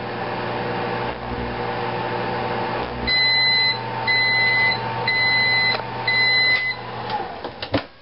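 Microwave oven running with a steady hum and no arcing from the metal cat food can inside. About three seconds in the heating stops and it gives four end-of-cycle beeps about a second apart, followed by clicks of the door opening near the end.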